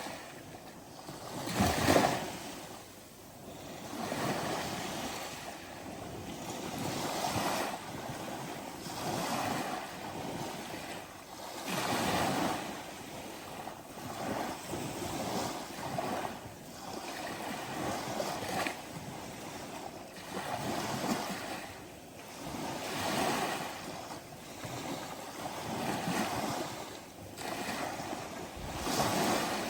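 Ocean waves breaking and washing on the shore, a steady surge rising and falling every few seconds, with one louder break about two seconds in.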